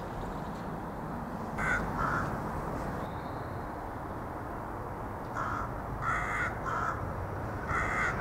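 A bird calling in short calls: two about two seconds in, then a quicker run of four or five through the last few seconds, over a steady low background rumble.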